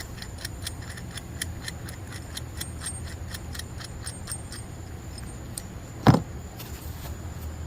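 Ratchet wrench clicking about four times a second as the bolt is tightened down, then a single loud metal knock about six seconds in.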